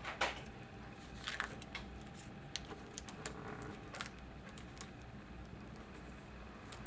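Faint crinkling and light scrapes of a clear plastic page protector being folded and pressed along a crease with fingertips and a bone folder, with small scattered ticks.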